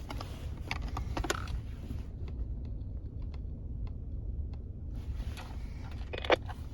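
Clicks and knocks of handheld 49 MHz walkie-talkies being handled and switched over to channel A, with faint small ticks in the middle, over a low steady rumble.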